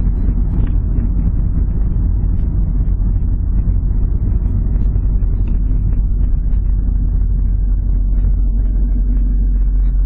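Car being driven, heard from inside the cabin: a steady low rumble of engine and road noise.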